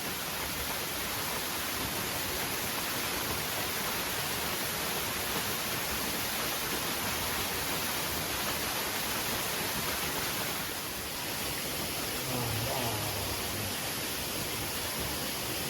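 Steady, even rush of a waterfall. A brief low voice sound comes about twelve seconds in.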